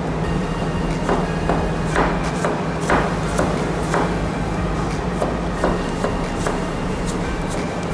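Chef's knife slicing shallots on a plastic cutting board: uneven knocks of the blade on the board, about two a second, over a steady low hum.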